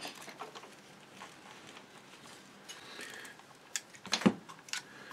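Low room hiss, then a few light clicks and taps in the second half, from small tools and wire being handled on a workbench.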